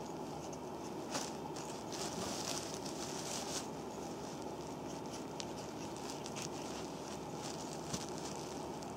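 Hands and a wooden massage stick rubbing and pressing an oiled foot sole, making soft slick rubbing sounds and small clicks over a steady hiss. The rubbing is busiest in the first few seconds.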